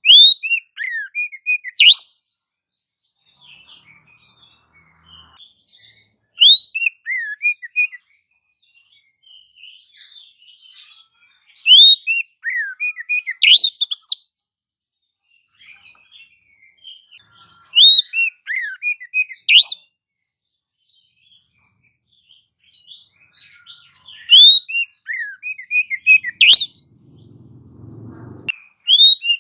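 Bird-lure recording of a songbird: a loud phrase of quick, sharp chirps repeats about every six seconds, with softer twittering between the phrases. A brief low rumble comes near the end.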